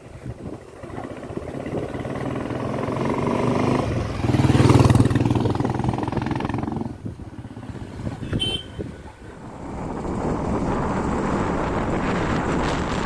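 1959 Royal Enfield Bullet 350's single-cylinder four-stroke engine running. It builds to its loudest about four to five seconds in, drops off around seven seconds, then runs steadily again near the end.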